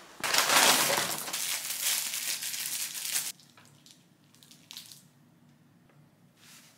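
Paper crinkling and rustling loudly for about three seconds: the McDonald's takeaway paper bag and sandwich wrapper being handled. After that come a couple of brief, soft crinkles.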